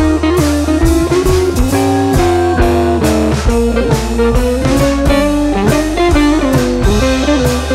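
Background music: guitar-led instrumental with bass and a steady drum beat.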